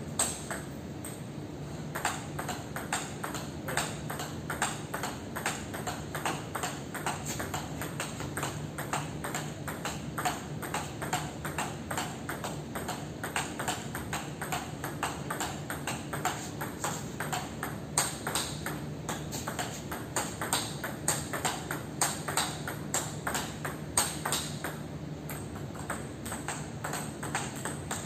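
Table tennis ball clicking back and forth off the paddles and bouncing on the table in a sustained fast rally, several sharp hits a second.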